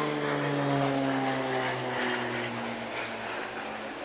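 Extra aerobatic monoplane's six-cylinder piston engine and propeller passing close by. The drone is loudest about a second in and falls steadily in pitch as the aircraft goes past, then settles into a fainter, lower drone.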